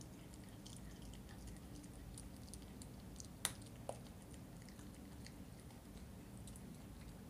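Miniature schnauzer puppy chewing and gnawing a raw chicken drumstick: faint wet chewing with scattered small clicks, and one sharper click about halfway through, the loudest sound, followed by a smaller one.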